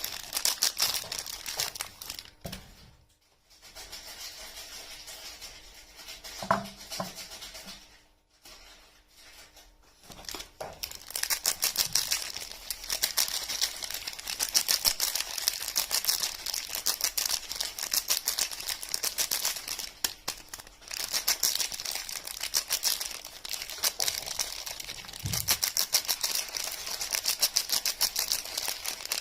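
Soap packaging crinkling and crackling as soap is unwrapped and handled: a dense run of small, rapid crackles. It quietens from about two to ten seconds in, with a few soft knocks, then the crackling picks up again and runs steadily, with one soft thump near the end.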